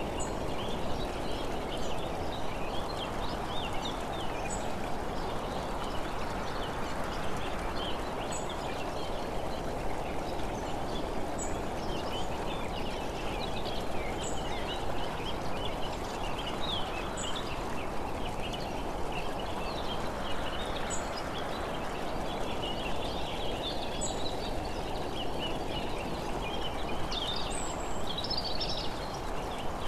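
Many small birds chirping and singing over a steady rush of wind and road noise from travelling along the road. A faint, high tick recurs about every three seconds.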